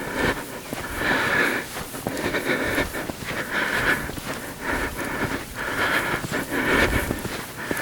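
A man breathing hard and heavily, about one breath every second and a half, as he trudges through deep snow, with footsteps crunching in the snow between the breaths.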